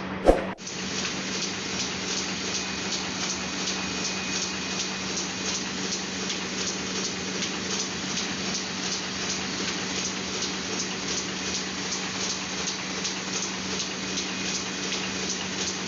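Four-colour offset printing press running steadily: a constant hum under an even, fast mechanical ticking as the press cycles. A single sharp, loud knock comes right at the start.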